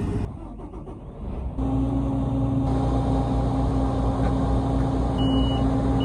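Claas Lexion combine harvester's diesel engine running steadily, coming in loud about one and a half seconds in. Two short high beeps sound near the end.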